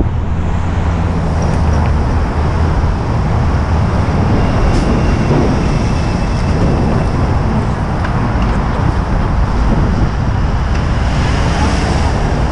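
Steady road traffic: cars and trucks passing close by in the lanes beside the sidewalk, a continuous dense rumble with no breaks.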